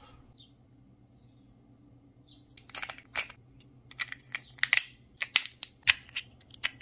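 Small 3D-printed plastic AA battery pack handled in the fingers: a run of irregular sharp plastic clicks and rattles, beginning about two and a half seconds in.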